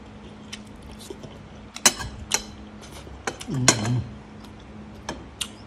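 Spoon and fork clicking against a plate while someone eats: a handful of sharp, separate clicks, with a low steady hum underneath.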